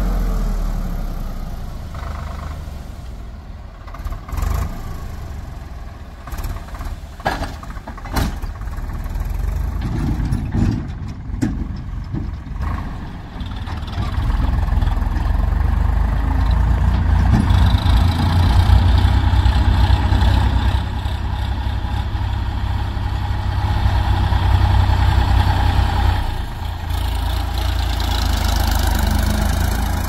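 Heavy diesel machinery engine running, with several sharp knocks between about four and twelve seconds in. About halfway through, the engine grows louder and fuller, holds there, and dips briefly a few seconds before the end.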